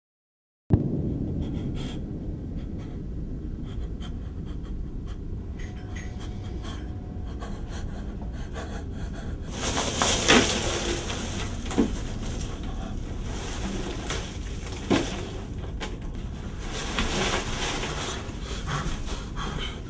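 A man panting heavily in gasps over a low steady rumble; the loud breathy gasps start about halfway through.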